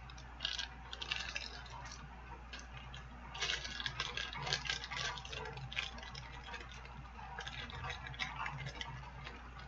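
Plastic-windowed card packaging being handled and turned over: scattered light crinkles and taps at irregular moments, over a low steady hum.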